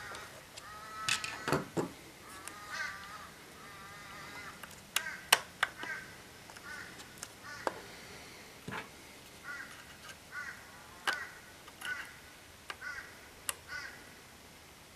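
Irregular clicks and knocks as a plastic Holden VDO instrument cluster and a screwdriver are handled on a table, the loudest a couple of thumps about a second in and sharp clicks around five seconds in. Short, harsh bird calls repeat in the background throughout.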